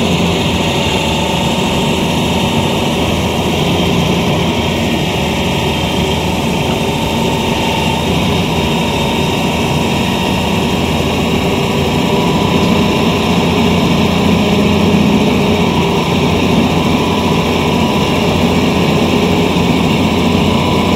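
Hydraulic excavator's diesel engine running steadily at close range.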